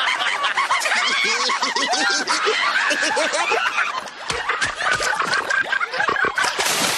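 Several cartoon voices laughing hard at once, overlapping cackles and chuckles.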